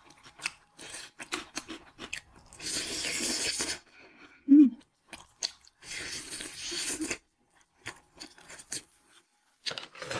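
Close-up eating sounds: crisp bites and chewing of sauce-coated vegetables pulled off a wooden skewer, with many small wet clicks. There are two hissing stretches of about a second each, and between them a brief low hum, the loudest sound.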